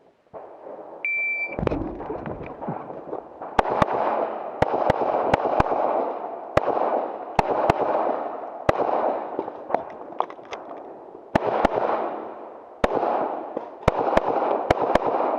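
A shot timer beeps once about a second in, then a pistol fires a long string of shots, mostly in quick pairs with pauses between, each shot echoing briefly: a USPSA stage being shot from the start signal.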